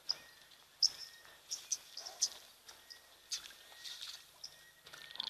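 Bush ambience: a faint, steady insect trill, with several short, sharp high chirps scattered through it.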